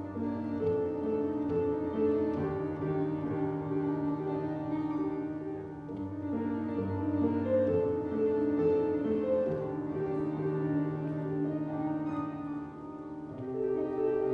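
Grand piano playing a slow piece, with low held bass notes under a melody. It softens briefly near the end, then swells again.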